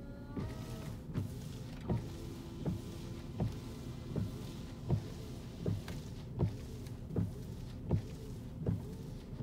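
Porsche Cayenne windshield wipers sweeping back and forth while the washer sprays fluid on the glass. A knock sounds at each turn of the wipers, about every three-quarters of a second, over a steady low hum.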